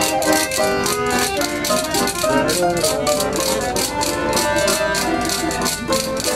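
Russian folk ensemble playing a lively tune: accordion chords and plucked strings over a fast, even rattling percussion beat.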